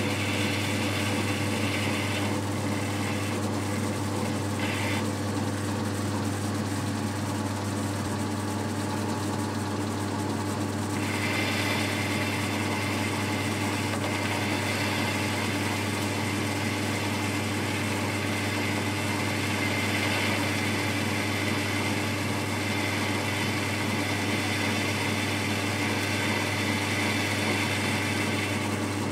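Boxford lathe running with a steady motor hum while an insert end mill, used as a boring bar, cuts inside the bore of the spinning workpiece. The higher cutting hiss breaks off about two seconds in, comes back briefly twice, and resumes steadily about eleven seconds in.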